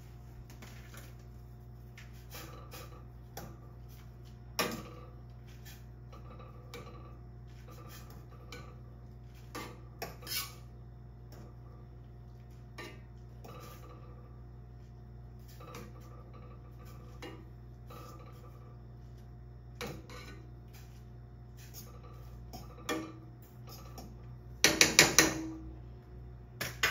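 A utensil knocking and clinking against a metal saucepan of instant ramen cooking on a gas burner, with scattered light knocks and a quick run of several louder taps near the end, over a steady low hum.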